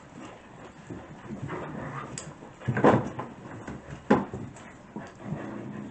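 Six-week-old puppies playing around a fabric play tunnel: scuffling with soft puppy whimpers and small yips, and two louder short sounds near the middle, about a second apart.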